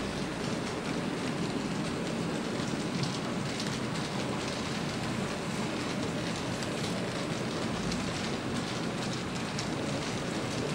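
A long consist of model diesel locomotives rolling steadily along model railroad track: an even whirring rush of wheels and motors with faint light clicking.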